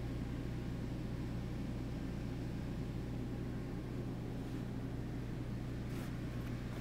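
Steady low electrical hum with a constant fan-like rush from transmitter-site equipment, and a brief click about six seconds in.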